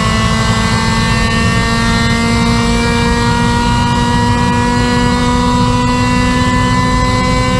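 Honda Civic race car's engine heard from inside the stripped cabin, pulling hard in one gear with its pitch climbing slowly and steadily, over heavy road and wind rumble.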